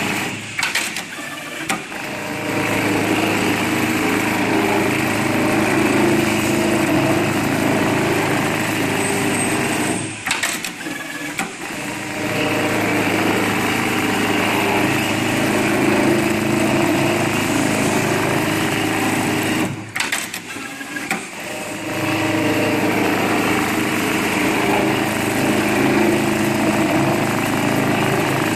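FOXSEW programmable pattern sewing machine running at speed, its needle stitching steadily through the work. The running sound drops away briefly three times, with a few clicks in each break.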